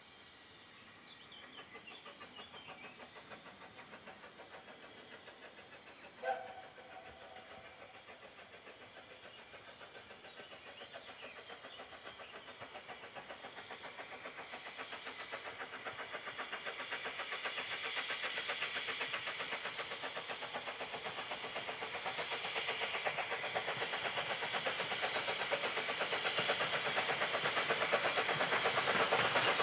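Steam locomotive SE&CR P class 0-6-0T No. 323 'Bluebell' working a train of vintage carriages, its exhaust beating in rapid, even chuffs that grow steadily louder as it approaches. A brief ringing sound stands out about six seconds in.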